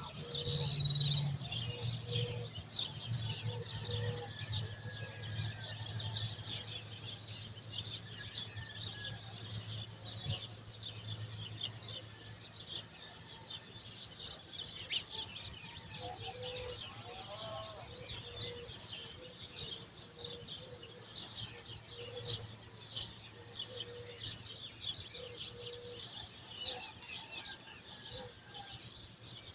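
Many small birds chirping and chattering together in a dense, continuous morning chorus, over a steady low hum.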